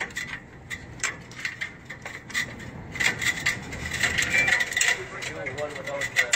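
Climbing on metal ground-ladder rungs: a run of metallic clinks and knocks from boots and gloves, with rope and webbing rubbing, getting busier about three seconds in.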